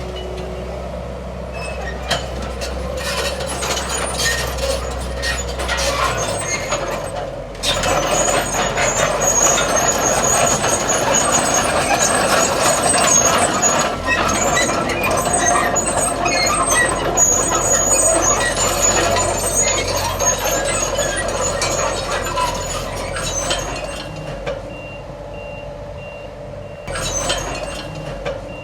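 Heavy diesel earthmoving machinery at work, dump truck and bulldozer engines running under load with metallic clatter. Near the end, a truck's reversing beeper starts sounding steadily.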